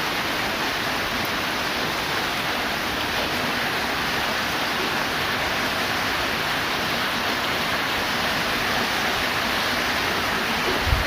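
Steady hiss of heavy rain falling, with a brief low thump at the very end.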